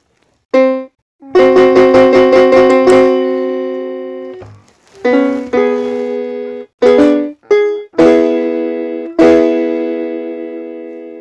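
Piano chords played on a keyboard: a short chord, then a quick run of about a dozen repeated chords, followed by several single chords each held and left to fade.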